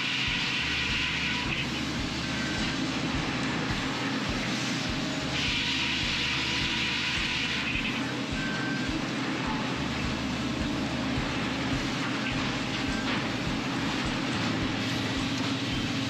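Overhead scragg sawmill running, its circular saws cutting through a log amid the steady din of the mill machinery. A higher saw whine rises over the din at the start and again for a couple of seconds about five seconds in.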